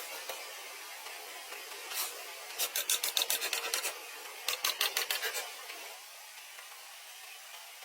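A hand tool rasping on bamboo in two quick runs of rapid strokes, about eight a second, each run lasting about a second, with a single stroke shortly before them.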